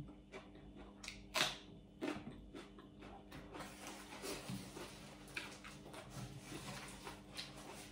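Faint close-up chewing of a crunchy raw green vegetable, soft crackles and mouth clicks with one sharper click about one and a half seconds in.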